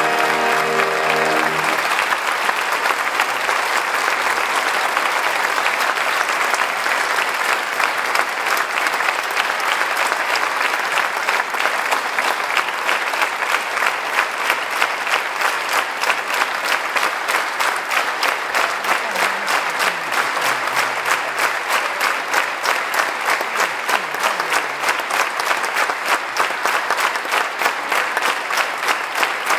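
An opera orchestra's final chord dies away in the first two seconds, and a theatre audience breaks into loud applause. From about halfway it turns into rhythmic clapping in unison, about three claps a second.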